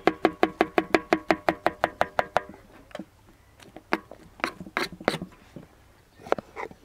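Kitchen knife chopping fruit on a plastic cutting board: a quick, even run of knocks, about five a second, for the first two and a half seconds, then a few scattered cuts.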